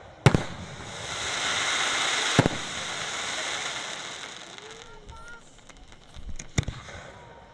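Aerial fireworks: a sharp bang, then a dense crackling hiss lasting about four seconds with another bang inside it. A few smaller pops follow, and a loud bang comes near the end.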